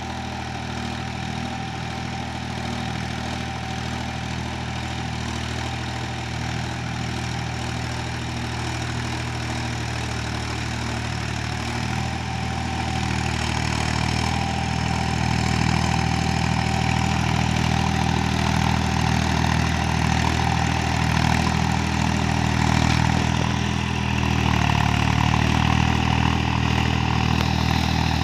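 Mahindra 275 DI tractor's three-cylinder diesel engine running steadily under load as it pulls a cultivator through a flooded paddy field. The engine grows louder as the tractor draws nearer, stepping up about halfway through and again near the end.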